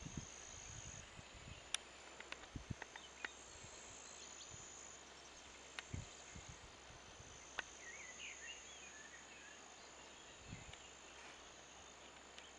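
Faint, steady high-pitched buzzing of insects, with a few short bird chirps about eight seconds in and occasional low thumps and clicks.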